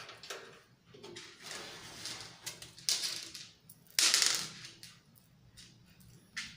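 Screws being fitted to fasten a power supply into a metal PC case: a few short scrapes and knocks of metal on metal, the loudest about four seconds in, with a sharp click near the end.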